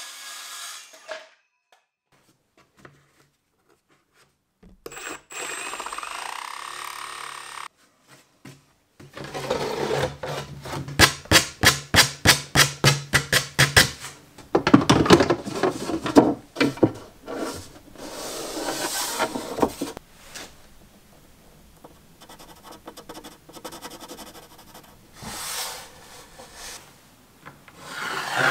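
Plywood edges being smoothed by hand: rubbing, scraping strokes back and forth, about three a second at the fastest, in bouts with pauses between.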